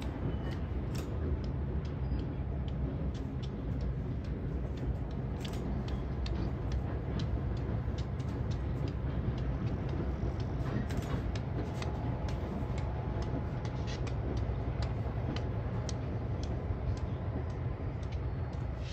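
Freight rail yard at a distance: a steady low rumble of diesel locomotives with irregular sharp clicks and clanks of freight cars.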